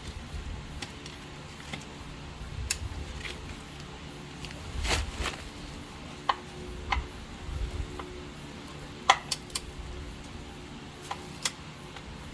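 Scattered sharp metallic clicks and clinks of a ratcheting torque wrench as the oil drain plug bolt is tightened to 37 ft-lb, coming at irregular intervals over a steady low hum.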